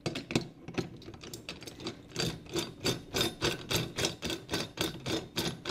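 Steady run of sharp metallic clicks, about four or five a second, from the aluminium clamp bar of a belt-fastener installation tool being set onto its base and its hand knobs turned down to hold the belt in place.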